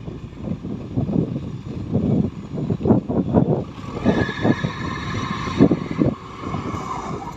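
Heavy earthmoving machinery at work: an engine running with irregular knocks and clatter throughout. A higher whine comes in about four seconds in and stops about three seconds later.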